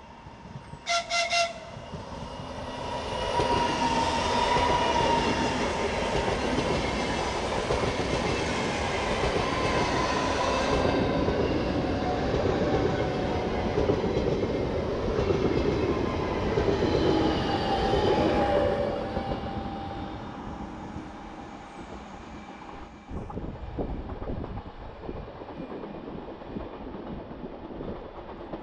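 ES1 Lastochka electric train (two coupled units) sounding a quick burst of short horn toots about a second in as a greeting to the trackside watcher. The train then passes close at speed, a loud rush of wheels on rail and running gear that peaks for about fifteen seconds and fades away near the end.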